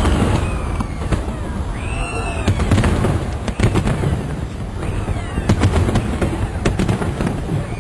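Aerial fireworks going off: many sharp bangs and crackles over a continuous low rumble, with the bangs coming thicker from about two and a half seconds in.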